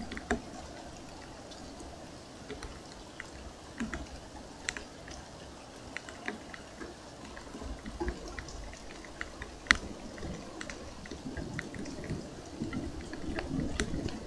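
Rain in a thunderstorm: a steady patter with scattered sharp drips, one louder drip about ten seconds in, and a low rumble growing near the end.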